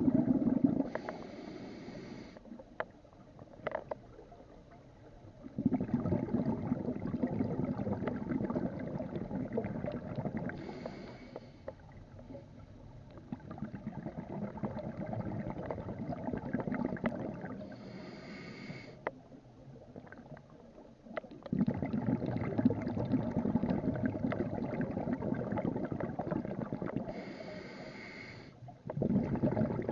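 Scuba diver breathing through a regulator underwater. There are four short hissing inhalations, and between them long stretches of rumbling, bubbling exhalation.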